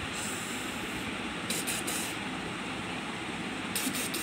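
A steady hiss, with a few light clicks and rattles of plastic Lego bricks being handled and moved over a stone floor about one and a half seconds in and near the end.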